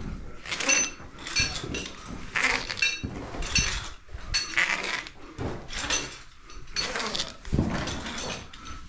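Metal caving hardware (ascenders and carabiners) clinking and rattling in a steady rhythm, about once a second, as a climber ascends a fixed rope in stroke after stroke.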